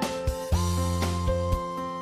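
Background music with a steady beat: held synth-like notes over regular drum hits.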